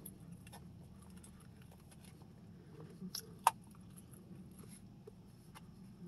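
Quiet eating at a table: chewing over a low steady hum, with a few sharp clicks from utensils. The loudest click comes about three and a half seconds in.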